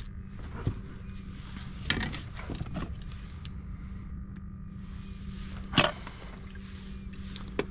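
Scattered knocks and small metallic rattles of fishing tackle being handled on a kayak, the loudest knock about six seconds in, over a steady low hum.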